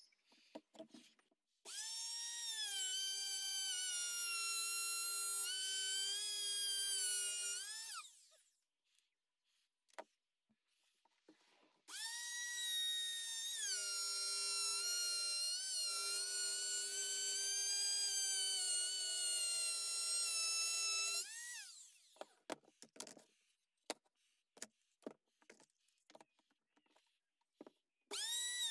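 Compact trim router cutting the edge of an elm board: a high, steady motor whine that dips slightly as the bit bites into the wood. It runs twice for several seconds, sliding down in pitch as the motor spins down after each run, with light knocks between runs as the router is moved.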